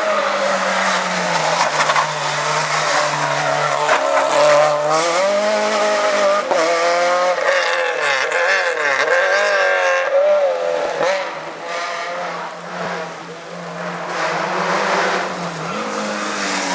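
Rally car engine at full throttle, its pitch climbing and dropping again and again with gear changes and lifts off the throttle. It goes quieter for a few seconds past the middle, then rises again.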